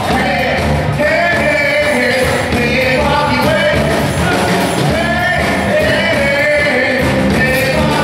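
Live funk band playing, with bass and drums driving a steady groove under sung vocals.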